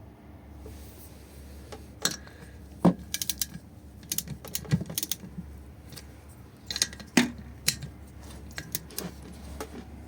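Torque wrench worked on the cylinder head bolts of a GX200-clone engine: a run of sharp metallic clicks and short clattering bursts, several seconds apart, as the bolts are brought up to 25 N·m.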